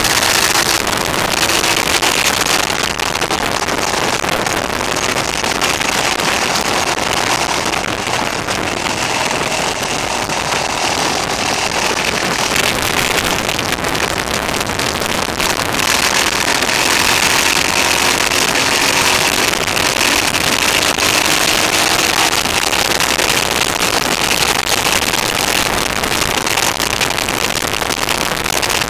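Motorcycle engine running at a steady cruise under loud wind and road rush, the pitch drifting gently up and down. The sound is harsh, recorded a little too loud on the on-board camera.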